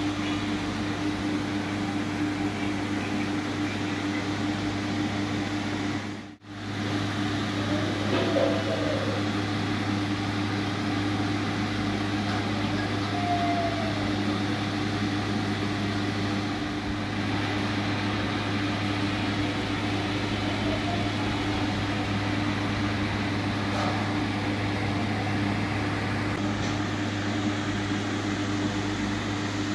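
Steady mechanical hum with a low drone and a steady higher tone over a noisy hiss, of the kind a room fan or air conditioner makes; it cuts out for a moment about six seconds in.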